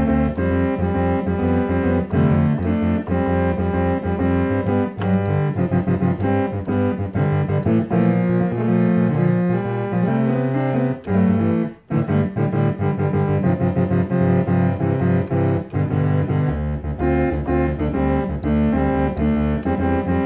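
Casio electronic keyboard played in a boogie style with a piano sound: chords over steady low bass notes. The playing breaks off for a moment about halfway through.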